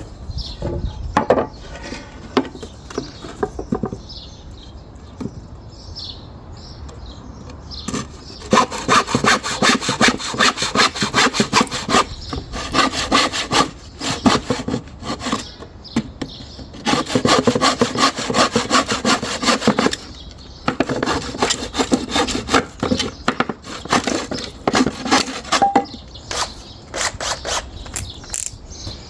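Hand saw cutting through a piece of wood, in runs of quick, even back-and-forth strokes with short pauses between the runs. The sawing starts about a third of the way in, after a few quieter knocks.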